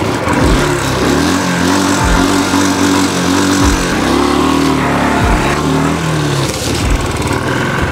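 Royal Enfield Bullet's single-cylinder engine running as the motorcycle pulls away and rides off, its note rising and falling several times with the throttle.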